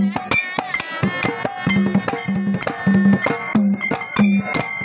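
Hand-played dhol barrel drums beating a quick folk rhythm, a low booming bass stroke recurring about twice a second with sharper slaps between.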